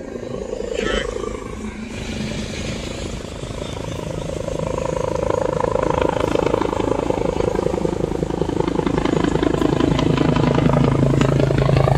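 Medevac helicopter with a fast rotor chop and engine whine, growing steadily louder as it approaches.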